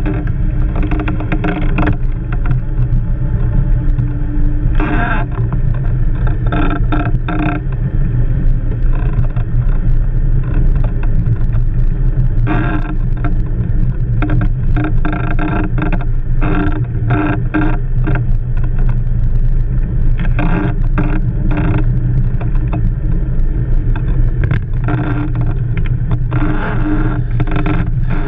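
Blokart land yacht rolling fast over beach sand: a steady low rumble with bouts of rattling and scraping from the wheels and frame.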